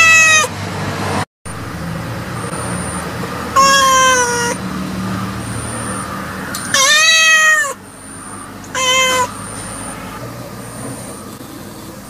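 Domestic cat meowing: the end of a long meow, then three separate meows about three and a half, seven and nine seconds in. The one at seven seconds is the longest and rises and falls in pitch, and the last is short.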